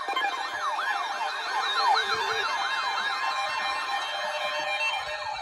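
Electronic siren tones sweeping quickly up and down, several overlapping, a few sweeps a second, as an alert sounds.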